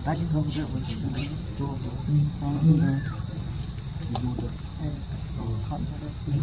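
Steady high-pitched drone of insects, with a brief rising-falling squeak about two and a half seconds in.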